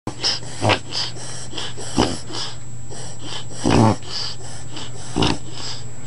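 Dog reverse sneezing: a rapid, continuous train of forceful noisy inhalations through the nose, about three a second, with four louder gasps spaced a second or more apart.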